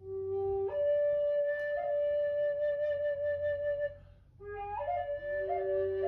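Native American flute playing a slow melody: a short low note rises to a long held higher note, then after a breath about four seconds in a second phrase steps through a few notes and settles on a long low note.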